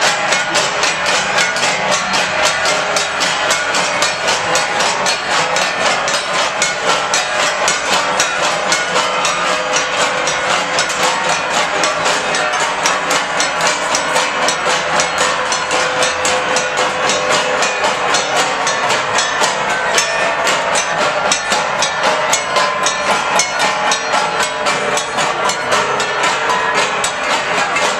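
Gangsa, flat bronze gongs played by many boys at once and beaten with wooden sticks, ringing in a fast, steady interlocking rhythm of about four or five strikes a second.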